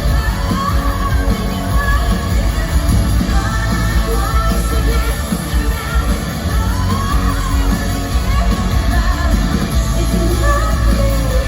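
Live pop-rock band playing loudly with a lead singer's voice over it, a concert sound system.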